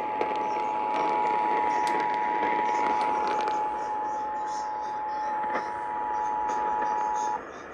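Emergency Alert System attention signal: the steady two-tone alert (853 and 960 Hz together) received over radio with hiss underneath, cutting off abruptly near the end. It heralds a National Weather Service flash flood warning.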